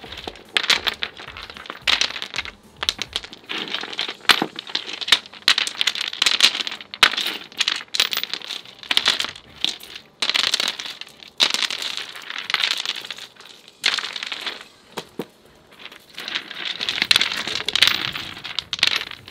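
Loose river rocks clattering and clacking against one another and scraping on concrete as they are picked up by hand and dropped back onto a rock bed, in irregular handfuls of sharp clicks.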